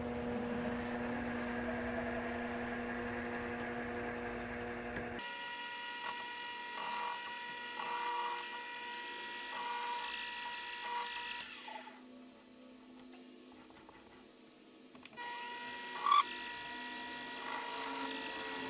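Mini-lathe running with a steady motor whine while the cutting tool turns down the outer flange of a toothed pulley mounted on the drive adapter. The whine changes pitch abruptly about five seconds in, drops low for about three seconds just past the middle, then resumes with a couple of brief louder scrapes near the end.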